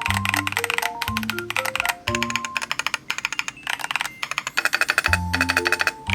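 Fast typing on an Epomaker TH80-X gasket-mounted mechanical keyboard, a quick run of key clicks with brief pauses, under background music with a bass line.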